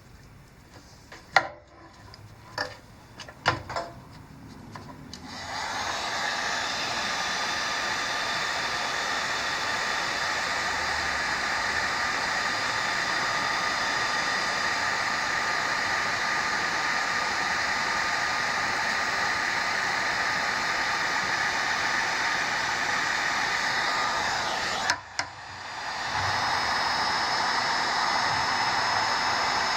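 A few handling clicks, then an electric heat gun starts blowing steadily to shrink heat-shrink tubing over a soldered wire splice. It cuts out briefly near the end and comes straight back on.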